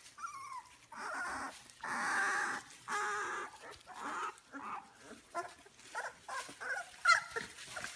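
Two-week-old Labrador retriever puppies whining and squealing in a string of high-pitched cries, a few held longer and many short, the loudest near the end. Wood shavings rustle as they crawl over one another.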